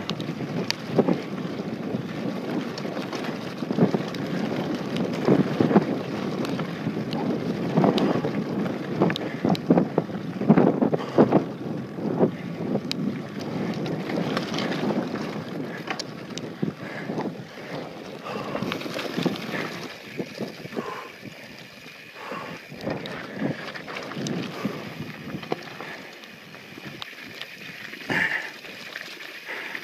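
Wind buffeting the microphone while a mountain bike descends a dirt and rock trail, its tyres rolling and the bike rattling, with many sharp knocks from rocks and bumps. It grows quieter after about two-thirds of the way through.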